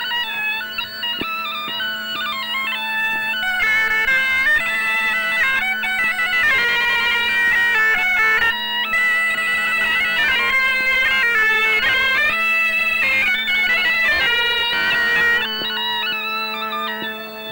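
Breton biniou bagpipe and bombarde playing a tune together over the bagpipe's steady drone; the playing grows fuller about three and a half seconds in.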